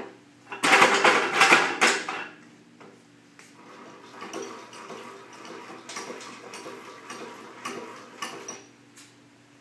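Yellow Jack-It hand pallet truck pulled clear of a pallet across concrete, a loud metallic clatter lasting about a second and a half. Then its fork-width hand crank is turned, a steady rattling, ticking run as the forks slide along the frame, stopping near the end.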